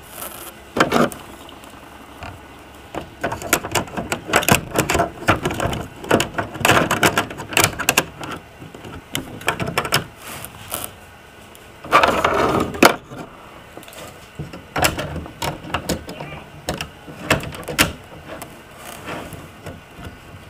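Irregular clicks, knocks and clatter of plastic toy trains being handled on a tabletop layout, with louder bumps about a second in and again around twelve seconds in.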